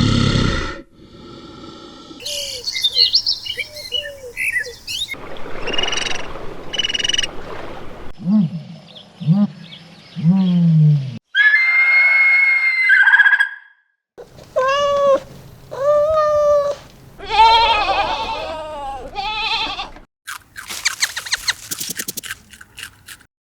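A string of different animal calls cut one after another: high chirps, three short low calls, a held high-pitched call, several repeated pitched calls, and a fast run of clicks near the end.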